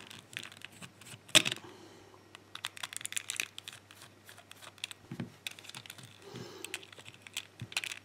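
Small screwdriver clicking and scraping in the screws of a plastic toy car's underside as the screws are undone, with light handling rustles; the sharpest click comes about a second and a half in.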